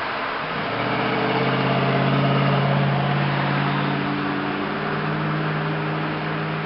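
Old truck's engine droning inside the cab at highway speed over steady road noise. A deep hum rises in strength about half a second in and then settles a little.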